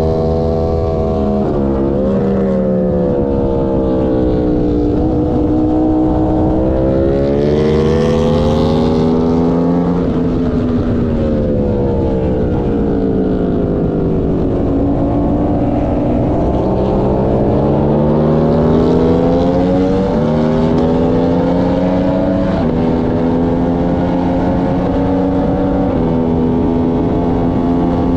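Aprilia sport motorcycle engine heard onboard at track speed. It revs up in rising sweeps cut by quick upshifts, eases off and slows through the middle, then pulls hard through the gears again with several upshifts near the end.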